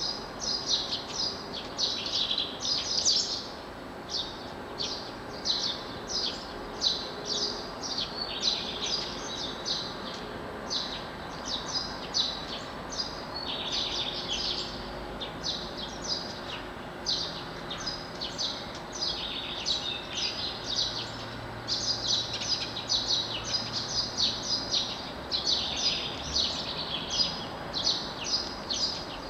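Dawn chorus of many songbirds singing at once, a dense tangle of overlapping high chirps and trills, over a faint steady background hiss.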